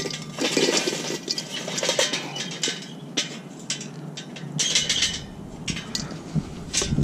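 Hot charcoal poured from a metal chimney starter into a Weber Smokey Joe's bowl: a run of rattling, clattering tumbles as the coals slide out and drop onto the charcoal grate. The noise comes in several bursts as the chimney is shaken empty.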